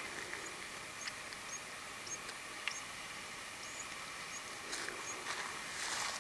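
Small bird chirping: short, high notes repeated about twice a second over a faint outdoor hiss, with a brief rustle near the end.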